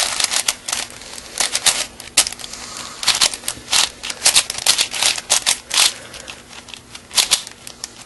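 A 4x4 Rubik's cube's plastic layers being turned by hand: quick, irregular runs of clicks and clacks, densest in the middle and thinning out near the end.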